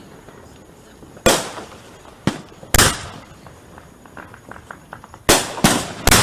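Fireworks bursting: about six sharp booms that come singly and in quick pairs. A run of small crackles comes between about four and five seconds in.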